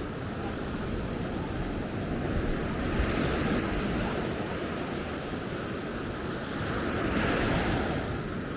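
Sea waves breaking and washing up on a beach, swelling about three seconds in and again near the end, with wind buffeting the microphone.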